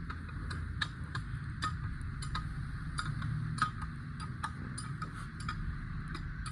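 Sharp, irregular clicks, about two a second, as a freshly assembled Maruti Suzuki Eeco engine is turned over by hand to check that the crankshaft, pistons and connecting rods rotate freely.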